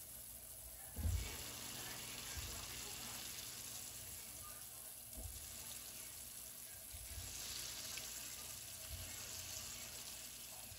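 Chopped onions, peppers and garlic sizzling steadily in a pan as browned beef cubes are added, with a few soft low thumps, the first and loudest about a second in.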